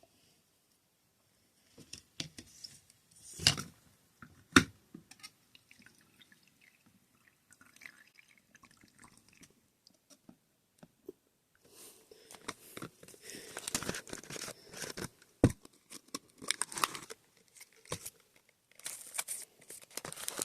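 Hands handling a plastic toy and its packaging. There are a few sharp plastic knocks early on, scattered small clicks, then crinkling and rustling through the second half.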